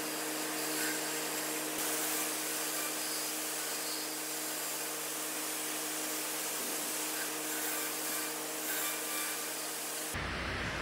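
Wood lathe running with a turning tool cutting a spinning hickory handle: a steady shaving hiss over the lathe's motor hum. About ten seconds in it cuts to a rougher rushing hiss, a torch flame.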